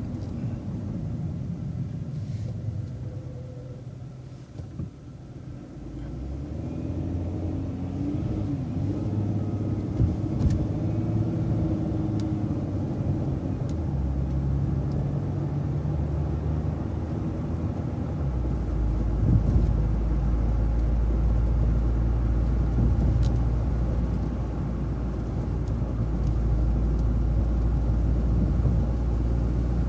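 City transit bus engine heard from inside the bus: low and quiet at first, then running up with a rising, shifting drone as the bus pulls away, settling into a steady low rumble through the second half.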